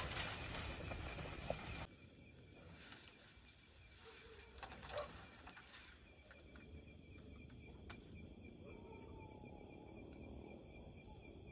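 Crickets and other night insects trilling steadily at several pitches, with a few faint snaps. For the first two seconds a louder noisy rush covers them, and it cuts off abruptly.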